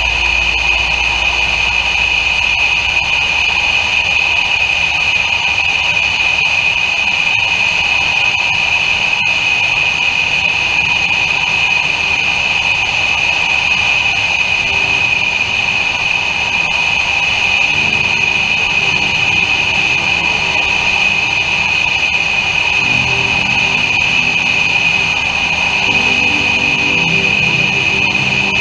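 Cabin noise of a Piper PA-23 Apache twin in flight: the steady drone of its piston engines and propellers with rushing air, carrying a steady high-pitched tone. Lower notes shift slightly in the second half.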